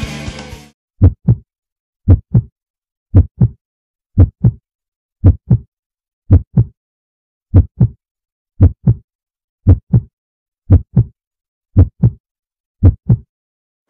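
Rock music stops a moment in, then a heartbeat sound effect: pairs of low thumps, about one a second, with silence between.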